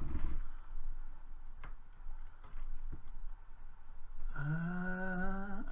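Handling noise from a plastic statue and lightsaber blade being fitted together, with a few faint clicks. Then, about four seconds in, a man holds a long wordless hesitation sound at one steady pitch for about a second and a half.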